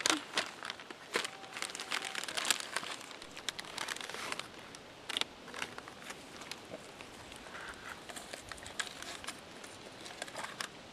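Crinkling and rustling of Fritos corn-chip bags being handled and filled, with many scattered sharp clicks and crackles; the loudest crackle comes right at the start.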